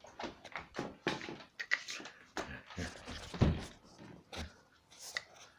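Giant malamute snuffling and breathing in short irregular bursts close to the microphone, with scuffling and a thump about three and a half seconds in.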